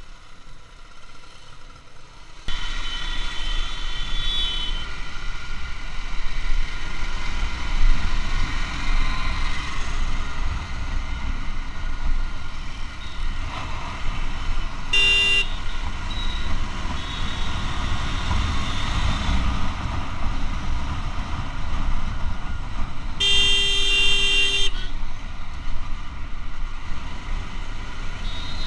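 Wind and road noise rushing over the action camera's microphone on a motorcycle under way, jumping suddenly louder a couple of seconds in. A vehicle horn honks briefly about halfway through and again, longer and louder, near the end.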